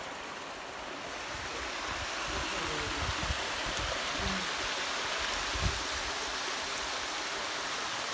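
Waterfall water rushing steadily, with a few short low thumps on the microphone.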